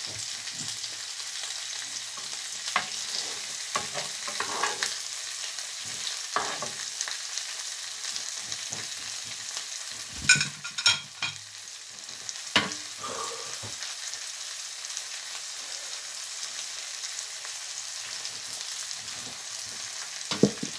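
Smoked haddock fillet frying in olive oil with garlic and chilli in a pan on a gas hob: a steady sizzling hiss. About halfway through, a few sharp metallic clinks of a spoon and fork against the plate.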